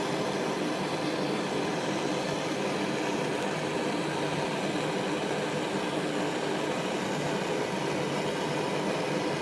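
Jeweler's soldering torch flame burning steadily with an even rushing hiss, turned up a little to bring the work up to soldering heat.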